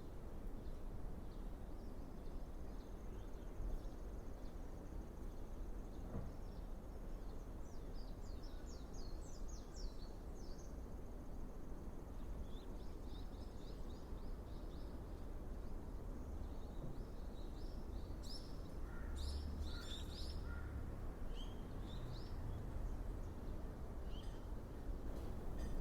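Steady outdoor background noise with scattered short, high bird chirps in quick runs, busiest in the middle and second half.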